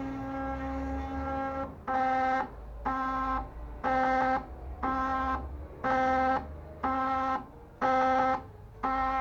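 Mini CNC's stepper motors whining at one steady pitch as the machine moves: one long run of about two seconds, then short runs starting and stopping about once a second.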